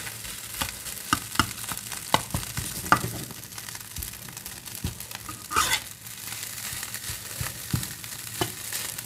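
Egg fried rice sizzling in a nonstick wok while a metal spatula stirs and scrapes it, with frequent sharp taps and scrapes against the pan, the loudest about five and a half seconds in. The rice is being fried until it crisps.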